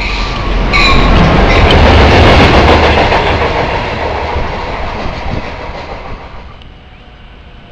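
Two Amtrak diesel locomotives, a GP38H-3 and a GP15D, passing close by. A short horn blast sounds about a second in, then the engines' low rumble and wheel noise on the rails peak around two seconds in and fade away.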